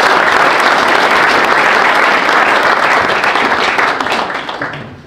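Audience applauding, a dense steady clapping that dies away over the last second.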